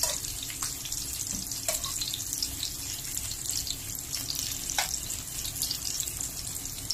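Oil sizzling steadily in a frying pan as dried squid and eggplant slices shallow-fry, with many small crackles and pops and a few brief falling squeaks from spitting oil.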